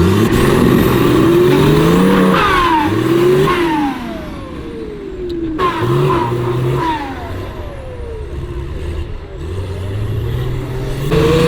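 Off-road 4x4's engine revving hard and dropping back again and again, its pitch climbing and falling several times, loudest in the first few seconds and again near the end.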